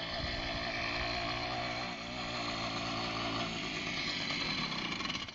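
Moped engine running steadily as the moped is ridden toward the camera.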